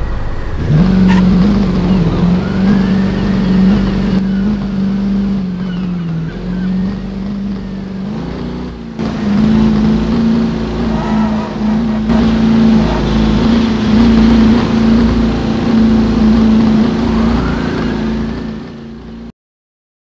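A car engine running steadily with a deep, even drone and low rumble. Its pitch rises briefly about halfway through, and it cuts off abruptly near the end.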